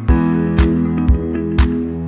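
Instrumental background music: guitar over a steady beat of about two beats a second.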